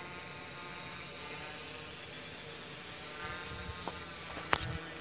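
F450 quadcopter drone flying overhead, its brushless motors and propellers giving a steady buzzing whine. Two sharp clicks near the end, the second the louder.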